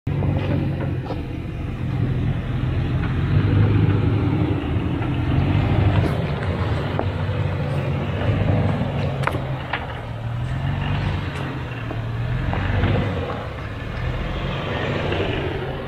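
Off-road 4x4 engine running at a low, slowly varying speed, with tyre and trail noise and a few sharp clicks or knocks.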